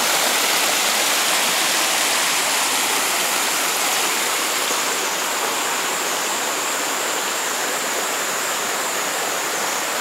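Waterfall and stream water rushing steadily over rocks, an even, unbroken rush with a faint steady high-pitched tone running through it.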